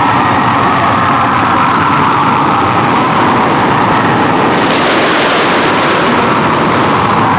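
Police Harley-Davidson motorcycles running in a group, their engines rumbling under sirens that wail with slowly rising and falling pitch. A crackling rattle swells around the middle.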